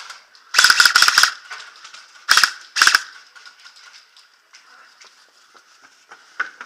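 Airsoft guns firing in rapid automatic bursts: a burst of just under a second, then two short bursts about a second and a half later.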